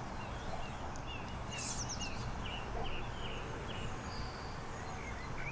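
Small songbirds chirping in quick, short repeated notes, loudest in the middle of the stretch, over a steady low outdoor background rumble.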